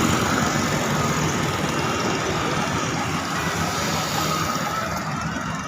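Bus engine running steadily, close by, amid road traffic noise.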